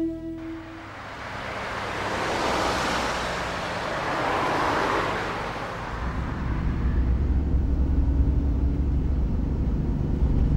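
A rushing noise swells and fades over the first half. Then, from about six seconds, a van's engine and road noise are heard from inside its cabin as a loud, steady low rumble.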